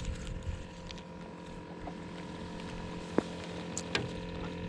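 Steady hum of a boat motor, with a couple of sharp clicks in the last second and a half.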